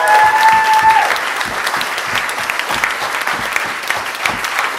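Audience applauding, many hands clapping. A voice holds a long shout over the clapping for about the first second.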